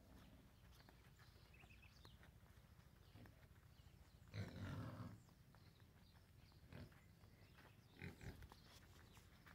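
Quiet farmyard with faint footsteps on dirt; about four seconds in a farm animal gives one short, low call, with a smaller sound near the end.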